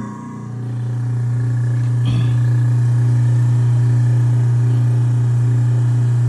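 Garbage disposal motor running with a loud, steady hum, building up over the first second; a brief knock about two seconds in.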